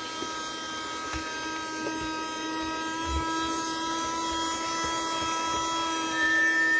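Battery-powered Henry Hoover desk mini vacuum running with a steady motor whine, with a few light knocks.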